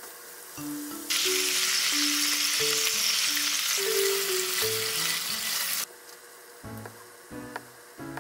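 Sauce sizzling in a hot frying pan as meat-wrapped rolls are turned and coated in it with chopsticks. The sizzle starts about a second in and cuts off abruptly near six seconds.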